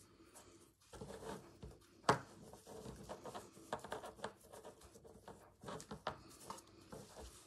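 Close rustling of ribbon and ric-rac trim being handled and tied onto a bead-strung bunting cord, with small irregular clicks and taps and one sharper click about two seconds in.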